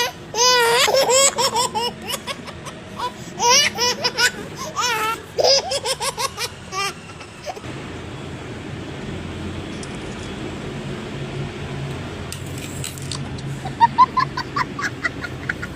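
A person laughing hard in rapid repeated bursts for about seven seconds, then a low steady hum, with more laughing near the end.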